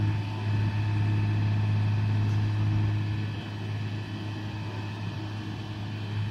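Crane truck's diesel engine running steadily as it powers the lift of a mobile home, a constant low hum that eases slightly about halfway through.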